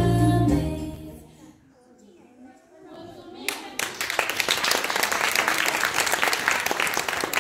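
Music ends within the first second, followed by a short lull. Then an audience breaks into applause about three and a half seconds in and keeps clapping steadily.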